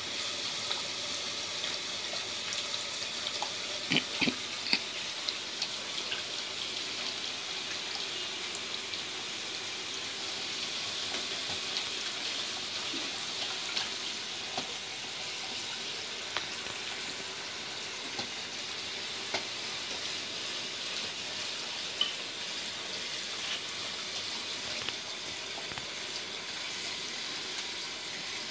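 Water spraying steadily from a pull-out kitchen faucet's spray head into a bowl in a stainless-steel sink as a raccoon handles it, a continuous hiss. A few sharp clinks of the bowl cut through, a cluster about four seconds in and one past the middle.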